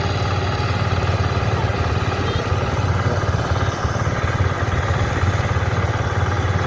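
Engine of a rice harvesting machine running steadily at a constant speed, a low even hum with a noisy mechanical wash over it.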